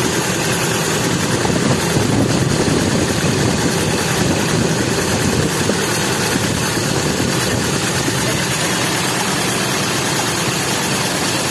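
Toyota Kijang Super's four-cylinder petrol engine idling roughly, with a ticking that the mechanic takes for a compression leak.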